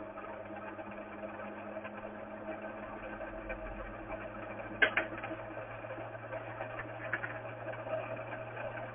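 Small domestic sewing machine's motor running steadily with the needle disengaged, spinning the bobbin winder to fill the bobbin. There is one sharp click about five seconds in.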